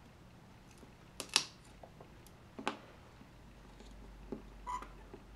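A plastic pry tool levering the battery out of an iPhone 4S: three sharp clicks and crackles as the battery comes free, the loudest about a second and a half in.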